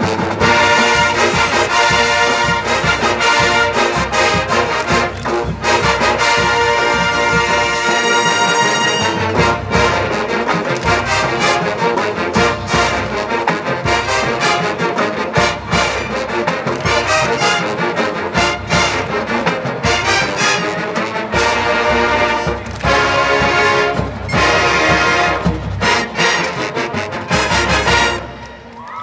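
College marching band playing a loud brass piece, trombones and trumpets over steady drum strikes; the music stops just before the end.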